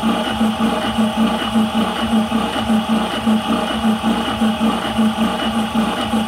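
High-pressure air compressor running with a steady pulsing beat a few times a second, pumping a 180cc airgun air cylinder partway up, about 100 bar on the way to 200 bar.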